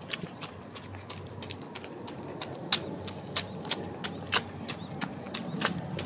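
Irregular sharp clicks and ticks, several a second, with a couple standing out louder, over a steady low hum.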